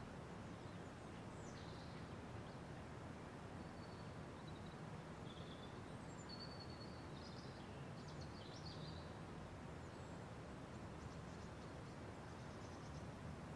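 Quiet room ambience: a faint steady hiss, with a few faint, short, high bird-like chirps about two to nine seconds in.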